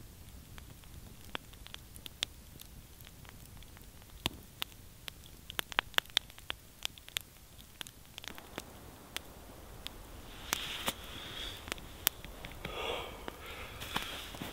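Wood campfire crackling, with sharp pops and snaps that come thickest around the middle. In the last few seconds a rustling noise rises under the crackle.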